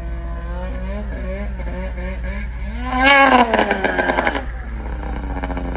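Snowmobile engine running with a wavering pitch, then revving hard about three seconds in and falling away, with a rapid clatter of knocks over the next second or so.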